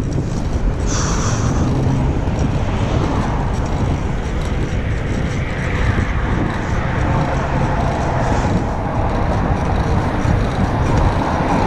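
Steady wind noise on the microphone of a moving bicycle, with cars passing on the road alongside; the traffic sound grows louder near the end as a car approaches.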